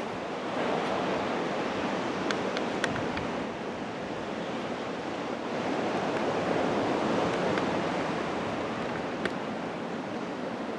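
Ocean surf washing onto a beach: a steady wash of waves that swells and eases, with a few faint ticks over it.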